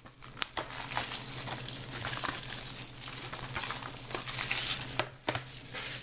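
Plastic shrink wrap being torn off a Blu-ray case and crumpled in the hands: continuous crinkling and crackling, with a few sharper snaps.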